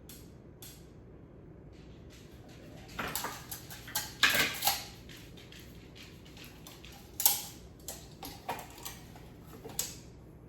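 Clicks, light knocks and a short stretch of scraping from wood pieces and tools being handled during measuring, with the loudest click about seven seconds in.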